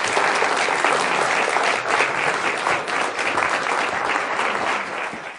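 Audience applauding: dense, steady clapping that eases off in the last second.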